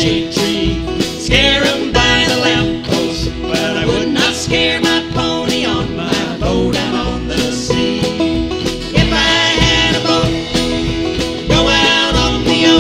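A live acoustic country band playing an instrumental passage: mandolin and acoustic guitars picking, with keyboard, over a steady beat of low bass notes.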